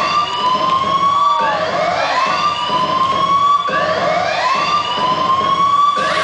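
Siren sound effect in a dance-routine music mix: a wail that sweeps upward and levels off, starting again about every second, over a steady low bass.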